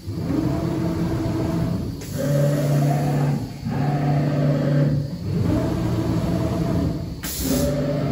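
CNC router axis drive motors whining as the gantry and spindle head make a series of rapid traverse moves for an automatic tool change, each move a steady pitched whine that rises briefly as it starts. About seven seconds in comes a short hiss of compressed air, typical of the pneumatic tool-change system.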